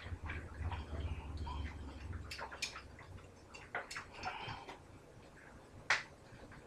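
Handling noises from a glass bottle of lemonade and a plastic bag: a few sharp clicks and taps, the loudest near the end, with some soft rustling.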